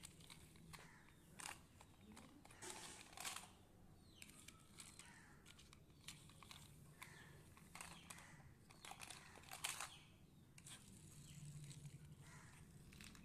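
Faint rustling and clicking of small plastic toy cars being pushed and handled on a cloth sheet, in scattered short bursts.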